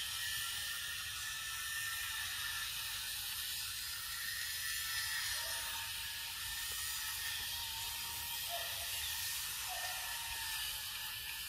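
Steady chorus of forest insects: a dense, even high hiss with a few thin, drawn-out wavering tones running through it.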